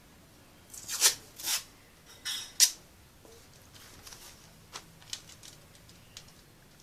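Paper and tape being worked by hand: four short rasping strokes in quick succession, the last the loudest, then a few light clicks.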